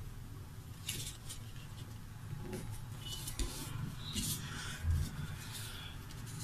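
Paper rustling and creasing as hands fold and press a sheet of paper, in several short scratchy bursts over a faint steady hum.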